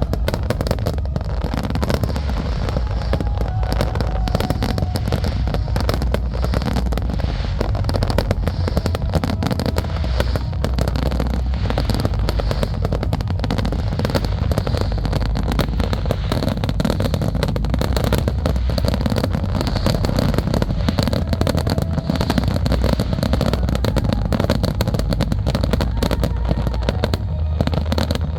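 Dense, continuous barrage of aerial fireworks shells bursting and crackling without a break, the rapid-fire finale of a large fireworks display.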